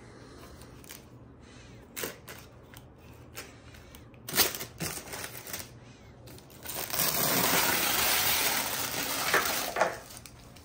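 Plastic bag crinkling loudly for about three seconds as it is pulled off a new lawn mower's engine, after a few sharp clicks and rustles.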